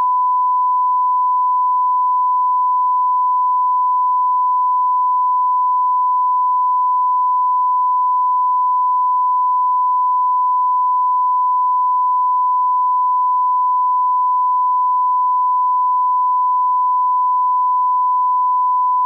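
Steady 1 kHz sine line-up tone, a single pure pitch held at constant level. It is the reference tone played with colour bars at the head of a broadcast tape, used to set audio levels.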